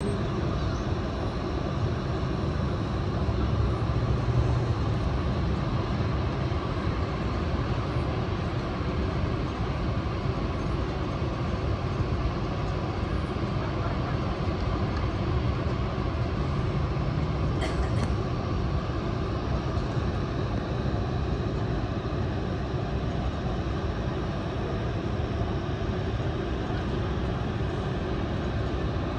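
Steady low rushing roar of Niagara Falls, even and unbroken.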